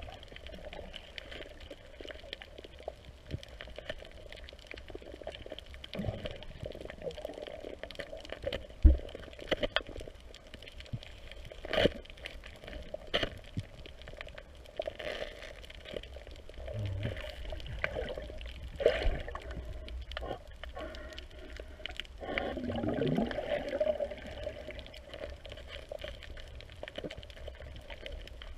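Underwater sound picked up through a waterproof camera housing: a steady watery hum, broken by scattered sharp knocks and scrapes as a metal-tipped pole probes into a hole in the reef rock.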